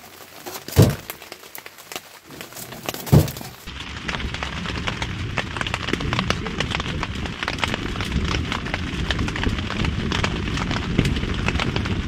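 Split firewood knocking twice against a titanium wood stove as it is loaded, then the wood fire crackling steadily with many small pops from a little before four seconds in.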